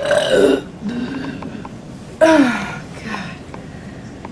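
A woman's short burps: a brief one at the start, a softer low one about a second in, and a sharper one just over two seconds in that starts suddenly and falls in pitch.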